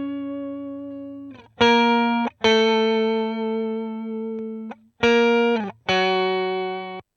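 Clean electric guitar played through the Overloud TH3 amp simulator's bright channel: single notes that ring and fade out. A held note dies away, then four new notes are picked, one held with a slight vibrato.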